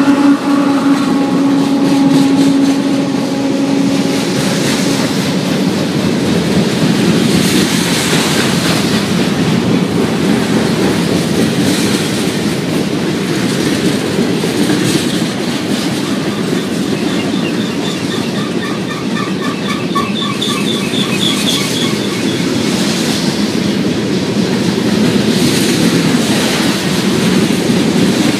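Freight train cars rolling past close by: a steady rumble and clatter of steel wheels on rail. A tone fades out over the first few seconds, and a high, pulsing wheel squeal comes in for a few seconds past the middle.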